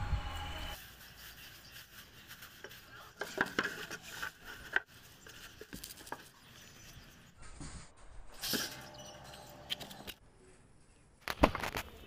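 Handling noise from dry straw and cardboard being pushed into place: rustling, scraping and scattered light taps and clicks, with a few sharper knocks.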